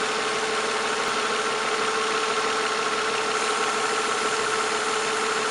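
2005 Nissan Altima's 3.5-litre V6 engine idling steadily, with a steady whine over an even hiss.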